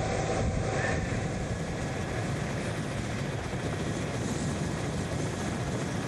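Steady engine and rotor rush of a camera helicopter filming a cycling peloton from above, without any rhythm standing out. It changes about a second in, as the sound switches over from the ground-level feed.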